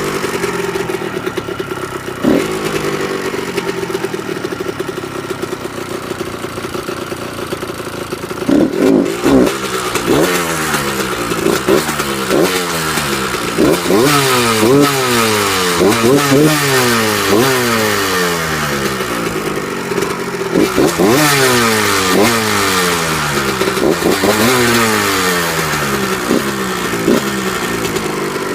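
1998 Kawasaki KX125's two-stroke single-cylinder engine idling, then revved in quick blips about once a second from about eight seconds in. The bike makes a slight ticking and rattling noise at idle and when revved, the cause of which the owner does not know.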